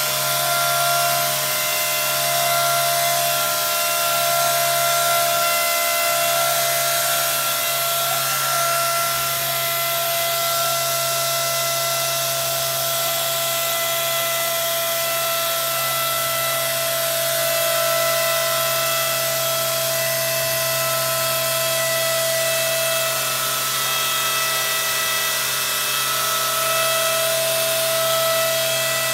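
A robot-held random orbital sander running steadily as it sands a flat slab door panel: a continuous hiss over a steady whine of several pitches, swelling slightly as the sander moves across the panel.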